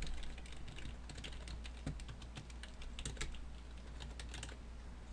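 Typing on a computer keyboard: a run of quick, irregular, fairly faint key clicks.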